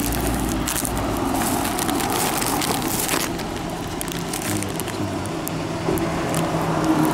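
Thin plastic bag and onigiri wrappers rustling and crinkling as they are handled, with a low steady hum underneath from about halfway through.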